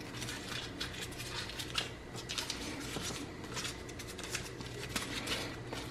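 Foil wrapper of a beef bouillon cube crinkling in small, irregular crackles as it is picked open with one hand, over a faint steady hum.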